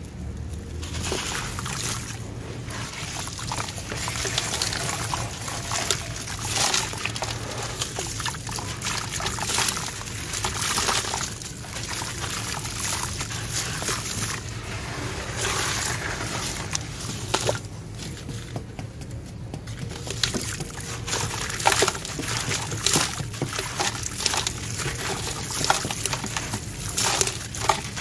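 Hands crumbling wet sand-cement chunks into a bowl of water: a dense, irregular gritty crackling, with splashing and trickling as the crumbs and grit fall into the water. There is a brief quieter spell about two-thirds of the way through.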